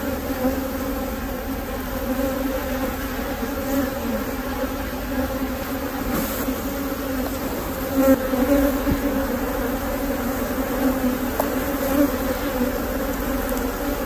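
Steady buzzing hum of a mass of honeybees from an open hive. The colony is queenless and defensive, stinging through leather gloves.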